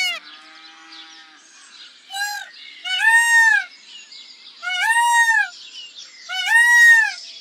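An animal calling again and again, a series of high calls that rise and then fall in pitch: a short one, then three longer ones.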